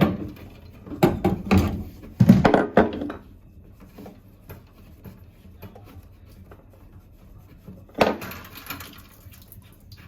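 Hard objects knocking and clattering as they are handled, in a cluster of knocks over the first three seconds and another short burst about eight seconds in, with faint small knocks between.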